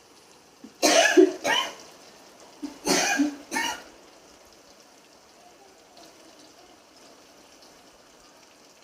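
A person coughing: two bouts of two coughs each, about two seconds apart.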